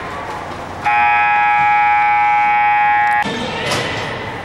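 Ice hockey arena horn sounding one steady, buzzing blast of about two and a half seconds, starting about a second in and cutting off sharply, over the rink's background noise.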